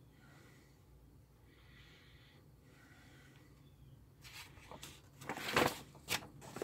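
A folded paper instruction manual crackling and rustling as it is handled and flipped over. The rustling starts about four seconds in, after a few seconds of near quiet.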